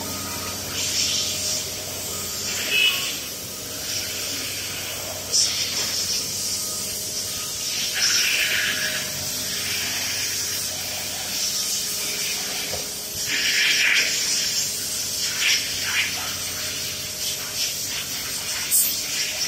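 Several short hissing sprays of pressurised air or fluid, a few seconds apart, with a few sharp metallic clicks from pump parts being handled on a steel bench.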